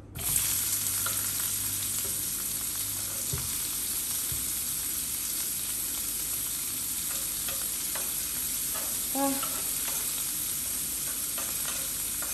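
Onion tipped into hot cooking oil, sizzling at once as it lands and then frying with a steady loud hiss while it is stirred, with a few light spoon clicks against the pan.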